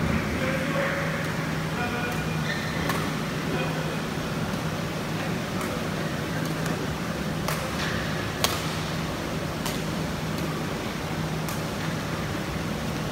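Badminton rackets striking the shuttlecock in a rally, sharp clicks about once a second, the loudest about eight and a half seconds in, over a steady low hum in the hall.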